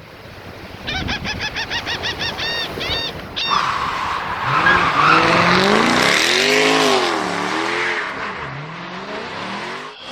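A rapid run of short high chirps, then a vehicle engine revving up and down with a squealing, skidding tyre noise.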